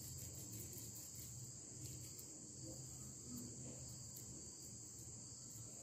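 Faint, steady high-pitched whine or chirring with a low hum beneath it; the hand-shaping of the dough adds little that is heard.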